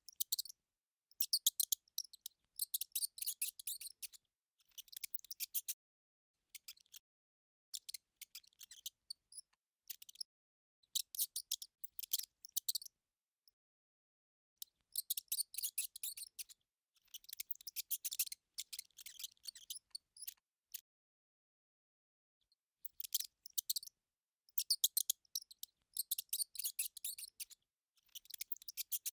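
High-pitched mouse squeaking and chittering sound effect, in rapid bursts of a second or two, with silent gaps between; the longest gaps come about halfway through and again about two-thirds of the way in.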